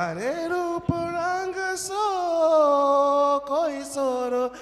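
A man singing a Rajasthani folk song into a microphone in long drawn-out notes, sliding up into the first note and breaking briefly for breath twice.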